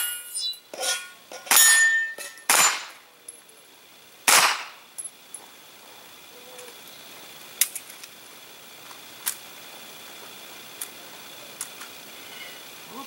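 Several gunshots, sharp single cracks at irregular intervals over the first four and a half seconds, followed by a few much fainter sharp reports.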